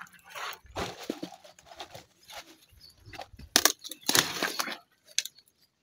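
Kale (sukuma wiki) leaves being snapped off the stalks by hand, with leafy rustling: a few short snaps and crackles at irregular moments.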